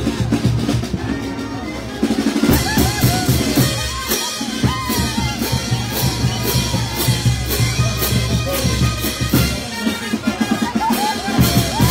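Peruvian street brass band playing: bass drums, snare and cymbals keep a steady beat under saxophones, clarinets and sousaphones. The band grows louder about two seconds in.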